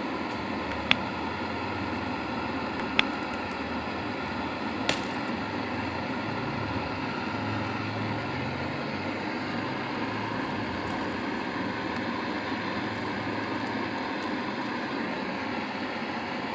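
Handheld gas flame gun running with a steady hiss. Three sharp clicks or pops come about two seconds apart in the first five seconds.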